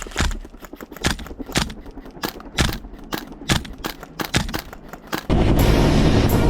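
Airsoft guns firing a rapid, irregular string of sharp shots. About five seconds in, the sound switches abruptly to the loud, steady running of a Huey helicopter's rotor and engine.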